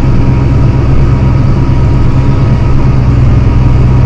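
John Deere 7280R tractor's six-cylinder diesel engine running steadily under load while pulling a plow, a constant low drone.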